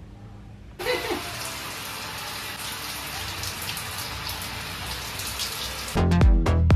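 Shower spray running steadily, water splashing in a tiled shower; it starts suddenly about a second in. Music comes in loudly near the end.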